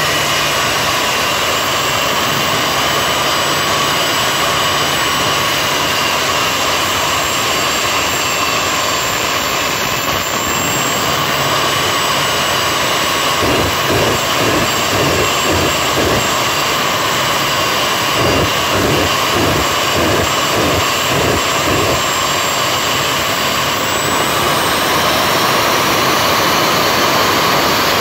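Jet turbine engine mounted on a fire truck running at a steady loud rush with a high turbine whine. From about halfway through, for some eight seconds, a run of rapid low pulses, about three a second, comes in as flame shoots from the exhaust.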